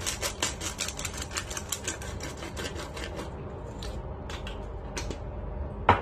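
Pepper being ground or shaken out over raw pork slices: rapid, even ticking of about six clicks a second for some three seconds, then a few scattered clicks. A single sharp knock comes near the end.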